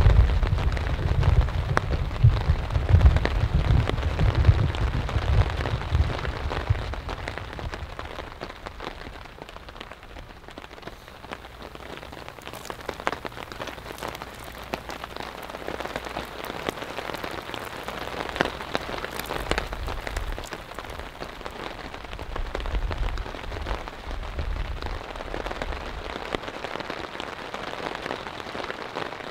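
Steady rain falling on a tarp shelter, a patter of drops with single drips ticking through it. A low rumble of thunder fades out over the first several seconds.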